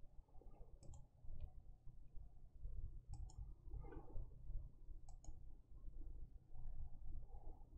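Faint sharp clicks in pairs, three double clicks about two seconds apart, with a little soft rustling and a low steady hum.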